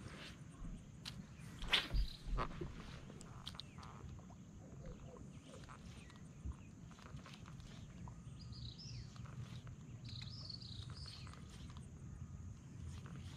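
Spinning rod and reel cast from a kayak: a few sharp knocks and clicks about two seconds in. Later, a bird chirps a few times over a low steady rumble.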